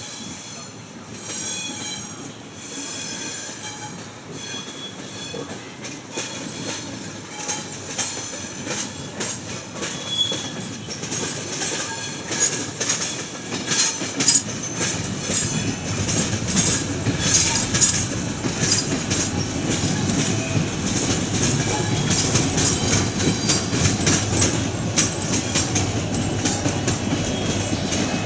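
Train moving through the station tracks and coming closer. It starts with high wheel squeal, then from about halfway it gets louder, with quick wheel clicks and a low rumble.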